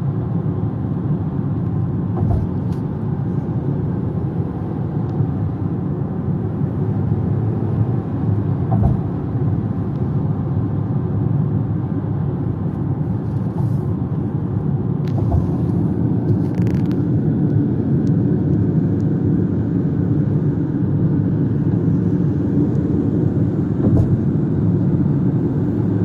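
Steady road and engine noise inside the cabin of a moving Haval Jolion, with a few short low thumps spread through it.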